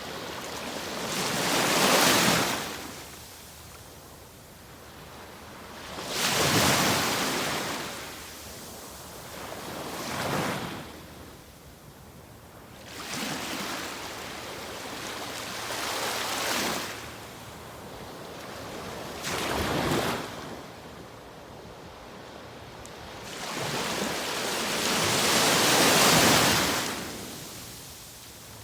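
Atlantic Ocean waves breaking and washing up the shore, about seven surges that each swell and fade over a few seconds.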